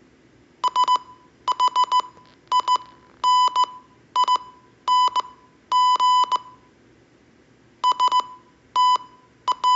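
Morse code practice tones: one steady electronic beep keyed on and off into dots and dashes, spelling out a short phrase letter by letter, with a longer pause between two words about two-thirds of the way through.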